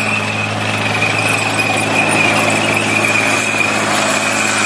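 A motor running steadily, with a constant low hum and a thin high whine over an even rushing noise.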